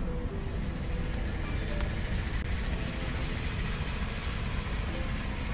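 2015 Chevy Silverado's V6 engine running steadily at idle under background music.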